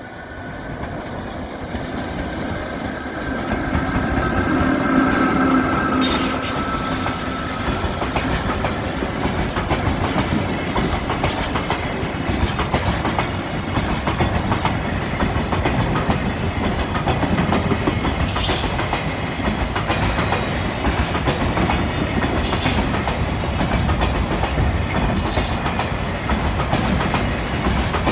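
Freight train passing close by. It grows louder over the first few seconds, then a long line of freight wagons rolls past with a steady clickety-clack of wheels over the rail joints.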